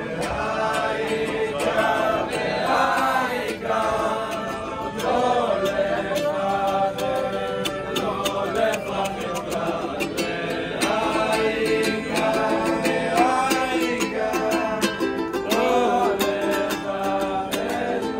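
Group of men singing a song together, accompanied by a strummed guitar.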